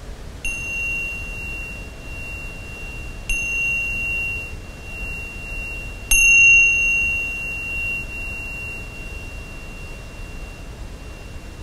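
Pair of tingsha cymbals struck together three times, about three seconds apart, each strike leaving a clear, high, steady ring. The third strike is the loudest and rings on for about five seconds as it fades.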